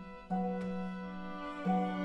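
Orchestral music: bowed strings hold sustained chords, with a new chord entering about a third of a second in and another near the end.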